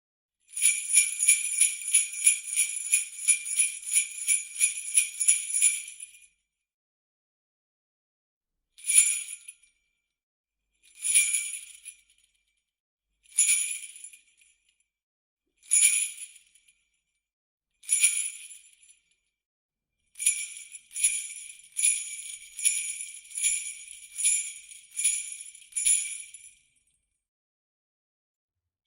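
Small jingle bells shaken. First comes a run of rhythmic shakes, about three a second, for some six seconds. After a short pause there are five single shakes about two seconds apart, then another run of rhythmic shaking for about six seconds.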